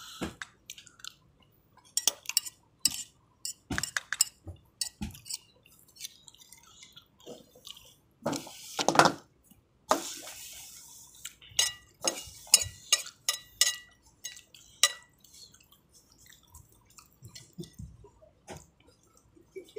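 Metal spoon clinking and scraping against a bowl in short, irregular strikes, some with a brief ring, with wet eating sounds in between.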